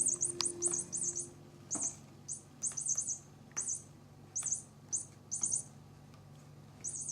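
Squeaking toy mouse for cats giving repeated short, very high-pitched squeaks in quick irregular clusters, as it is batted or moved, with a few light knocks in between.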